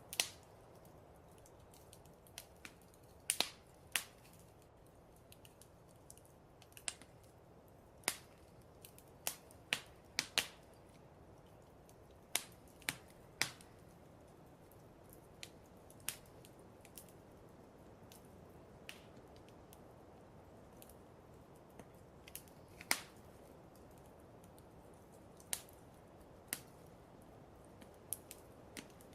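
Wood fire crackling in a fireplace: irregular sharp pops and snaps, some louder than others, over a soft steady hiss.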